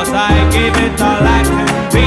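Background music: an upbeat song with a steady beat, high percussion strokes about four times a second over a bass line.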